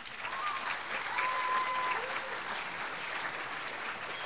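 Audience applauding steadily after a speaker's closing words.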